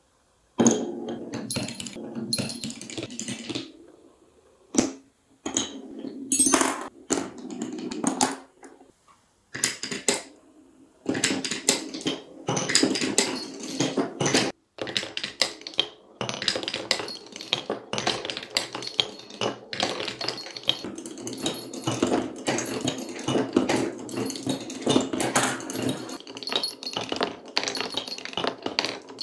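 Glass marbles rolling along a wooden marble run, a rumbling roll broken by quick clattering clicks as they hit the wooden blocks and drop between chutes.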